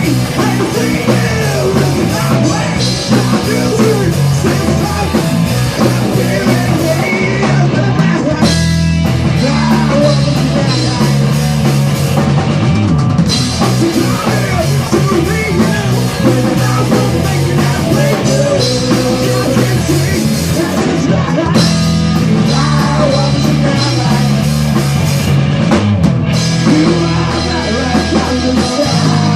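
A rock band playing a song live, loud, with drum kit and guitar.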